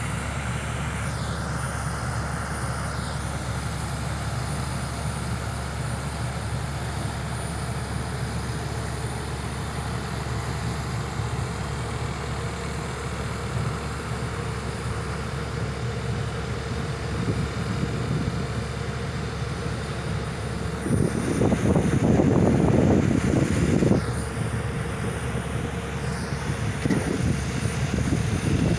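Heavy diesel machinery running steadily with a low drone. A louder stretch of rushing noise lasts about three seconds, starting about two-thirds of the way in, and the level rises again near the end.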